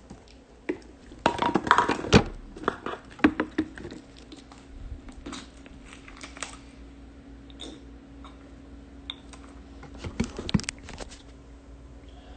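Handling noise: irregular clicks, knocks and crinkles, bunched in a few flurries, over a faint steady hum.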